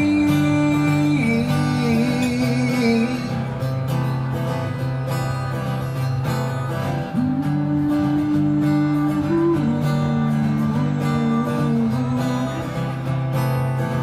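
Instrumental break of a song played live on a strummed Taylor acoustic-electric guitar, with a held melody line stepping between notes over a steady low note.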